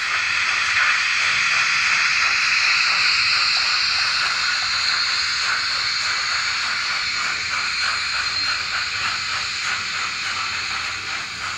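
N-scale model train of double-deck coaches rolling past close by on the track: a steady rushing hiss with rapid faint clicking from the wheels, easing slightly toward the end as the train moves away.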